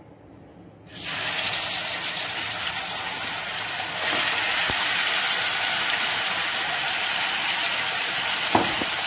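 Yogurt-marinated chicken dropping into hot oil in a kadhai: a loud, steady sizzle starts suddenly about a second in and grows louder about four seconds in. There is a single light knock near the end.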